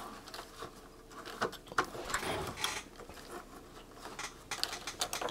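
Irregular small clicks and rustles of hands handling a multimeter's circuit boards and pushing test-lead plugs and clips into place.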